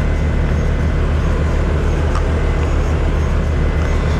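Snow-plowing machine's engine idling steadily while it warms up, a constant low rumble.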